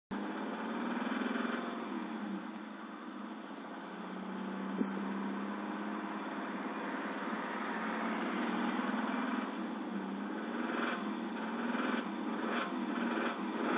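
Subaru engine running, its speed rising and falling, with a sharp tap about five seconds in and repeated knock-like beats near the end. The owner suspects a rod bearing knock or piston slap, with low oil pressure at warm idle.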